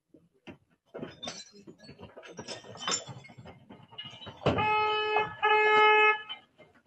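A car horn sounds twice, two steady honks of about a second each, after a stretch of scattered clattering and knocks.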